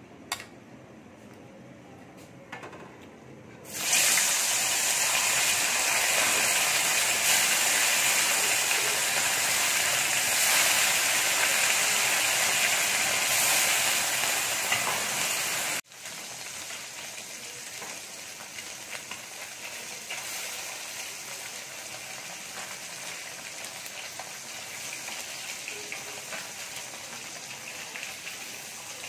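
Turmeric-coated phasa fish frying in hot oil in an aluminium kadai: a loud, steady sizzle starts about four seconds in. After an abrupt cut the sizzle goes on more quietly, with light scrapes and taps of a metal spatula turning the fish.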